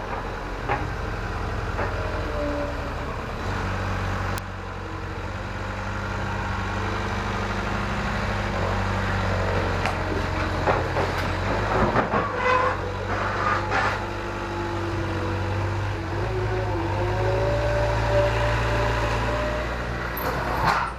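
A vehicle engine runs steadily with a low hum during pallet loading, stepping up a few seconds in, with a motor whine that rises and falls. Several knocks and rattles come in the middle.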